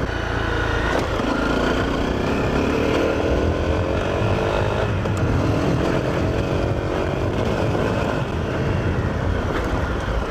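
Honda CRF250L's single-cylinder four-stroke engine running under way, its pitch rising as it accelerates over the first few seconds and then holding steady, with wind noise on the microphone.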